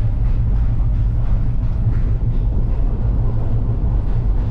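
Steady low rumble of a moving passenger train, heard from inside the coach as the car rolls along the track.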